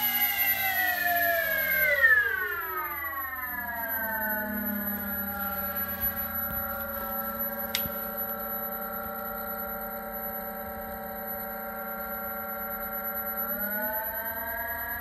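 The model Twin Otter's twin motors and propellers running with a pitched whine that drops sharply about two seconds in as the throttle comes back, holds steady at a lower speed, then starts rising again near the end.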